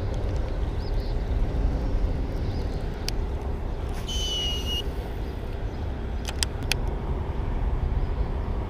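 Steady low rumble of highway traffic on the bridge overhead. A short high squeal about four seconds in, and a few sharp clicks.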